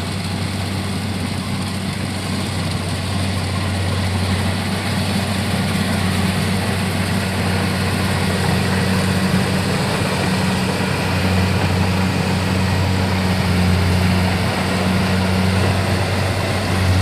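Kubota farm machine's engine running steadily while working a muddy rice paddy, with a deep, even pitch, gradually getting louder.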